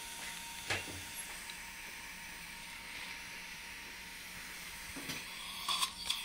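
Steady hiss with a sharp click about a second in, then a quick cluster of metallic clicks near the end as dental extraction forceps grip the remaining root of a lower premolar.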